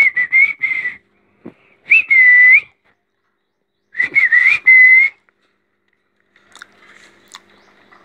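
Young rose-ringed parakeets giving loud whistled calls, three of them about two seconds apart, each a quick rise and then a held note. A few faint taps come near the end.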